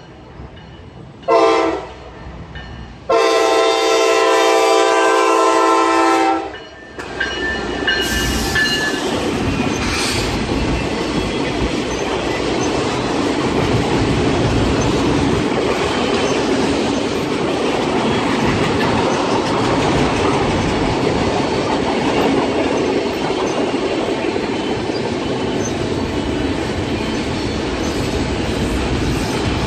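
Train horn sounding one short blast and then one long blast, followed by the train rolling past with a steady, loud noise of wheels on rail.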